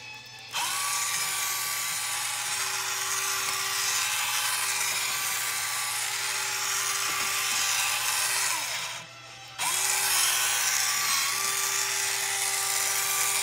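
High-torque slew motor and gear drive of a Huina 1592 RC excavator whirring as the upper body turns on the track base: a steady small-motor whine with gear noise, the gears meshing well and tight. It runs about eight seconds, stops for under a second, then starts again.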